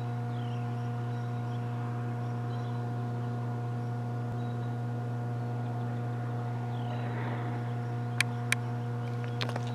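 Steady low machine hum made of several held tones, unchanging throughout. Two faint falling chirps come early and about seven seconds in, and two sharp clicks come near the end.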